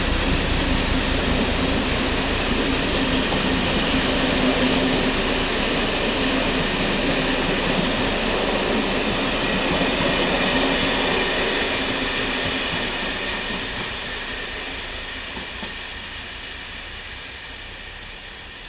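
Express train hauled by a Czech class 749 'Bardotka' diesel locomotive, accelerating out of the station: the passenger coaches roll past with a steady rumble of wheels on rail. The sound fades away over the last six seconds or so as the train draws off.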